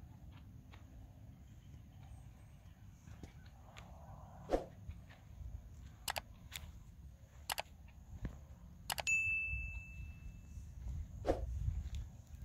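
Subscribe-button animation sound effect: a quick run of mouse clicks about halfway through, then a single bell ding that rings on for more than a second. A low outdoor rumble runs underneath.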